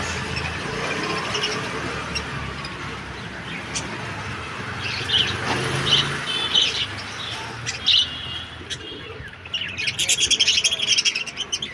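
Small pet parrots chirping: a few separate short, high chirps from about halfway through, then a fast run of chattering near the end.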